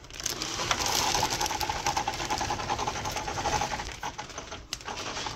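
Clear plastic bag wrapping crinkling and rustling as it is handled and the RC truck inside is pulled out of its cardboard box, easing off near the end.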